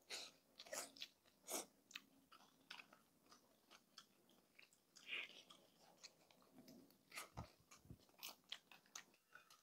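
Mouth-close chewing of crispy pata, deep-fried pork knuckle, with sharp, irregular crunches of the crackling skin between softer chewing.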